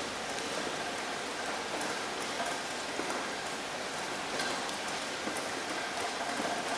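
Steady rain falling on a surface, a dense even hiss with scattered drop ticks.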